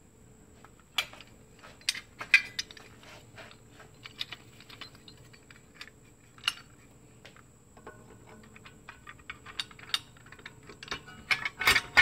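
Irregular metal clinks and clicks as a Briggs & Stratton flathead engine's cylinder head, its head bolts loose in their holes, is handled and set down onto the block over a new head gasket. A quick run of louder clinks comes near the end.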